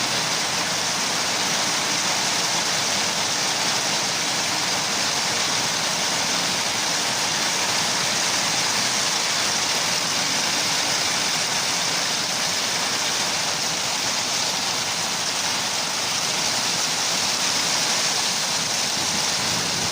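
Heavy rain falling, a steady even hiss of water.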